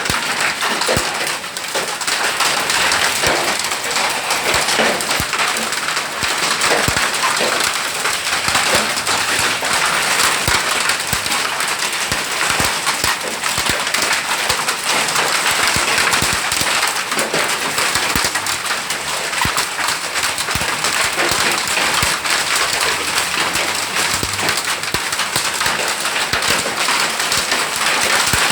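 Hailstorm: heavy rain hissing steadily with a constant patter of many sharp individual hailstone impacts.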